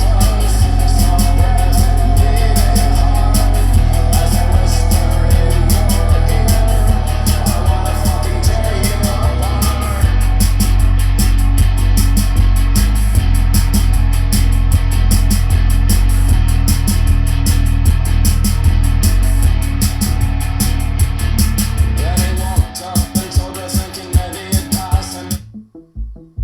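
Rock music with drums, guitar and singing played through a Logitech Z906 speaker system and its subwoofer, with heavy bass. Near the end the music thins out, then drops to separate low bass thumps.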